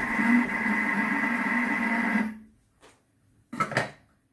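Kitchen robot food processor kneading shortcrust pastry dough: its motor runs for about two seconds, stops, then gives two short bursts, the start-stop pattern of its kneading setting.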